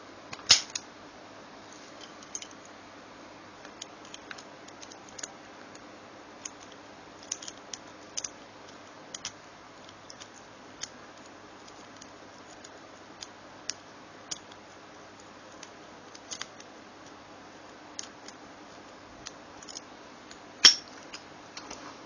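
Lock pick and tension wire working inside a padlock: scattered small metallic clicks and scrapes, with two louder clicks, one just after the start and one near the end, over a steady faint hiss.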